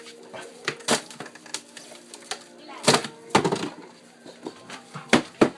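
Several sharp knocks and clicks, the loudest a cluster about three seconds in and two more near the end, over a faint steady hum.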